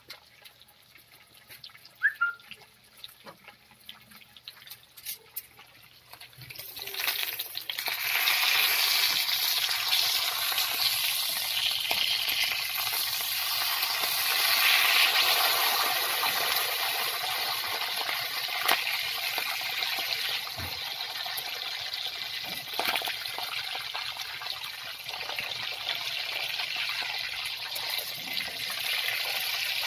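Chicken pieces frying in hot oil in a wok: a steady sizzle that becomes loud about six seconds in and holds, with a few sharp clicks.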